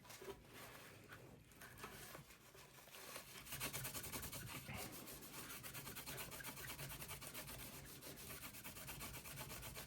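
Paper towel rubbing old thermal paste off a CPU cooler's contact surface in quick back-and-forth strokes, becoming steadier and a little louder about three and a half seconds in.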